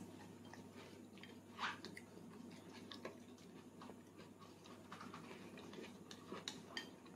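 Toddler chewing a mouthful of food: faint, soft mouth sounds with scattered small clicks, one slightly louder about one and a half seconds in.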